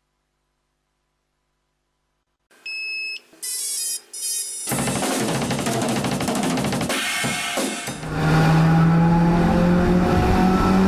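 Silence for about two and a half seconds, then music starts: a few short electronic tones, then a full band mix with drums and bass that gets louder about eight seconds in.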